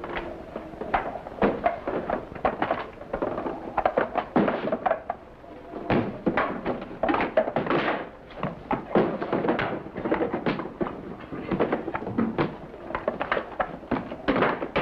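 A quick, irregular run of knocks and thumps, several a second, with no pause through the stretch.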